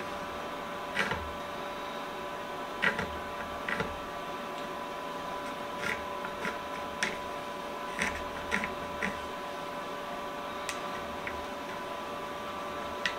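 Pencil scratching and tapping as it traces around a small wooden bow-tie key held on an old wooden board: a scattering of short, irregular scratches and clicks over a steady hum.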